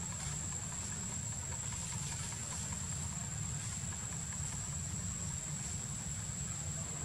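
Steady outdoor background noise: a low rumble and faint hiss, with a constant high-pitched whine over it.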